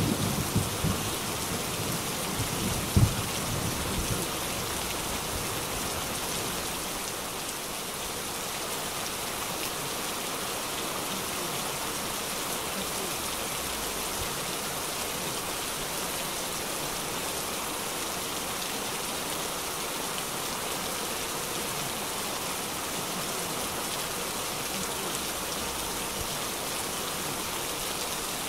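Heavy rain falling on a wet street and pavement, a steady hiss. In the first few seconds there is a low rumble and one sharp thump about three seconds in.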